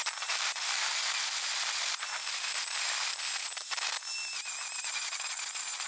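Angle grinder grinding down fresh welds on a car's steel door pillar: a steady grinding hiss with a high motor whine, the whine's pitch sagging slightly now and then as the disc is pressed into the metal.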